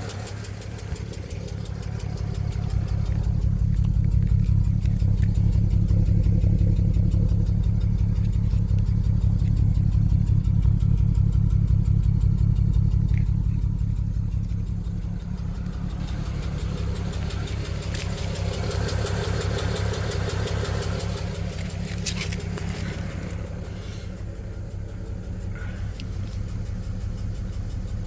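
2007 BMW 335i's twin-turbo inline-six running rough, a steady pulsing engine sound that swells louder a few seconds in and eases back after about fifteen seconds. The whole car shakes, a misfire that the owner ties to a fault code for cylinder 6's fuel injector.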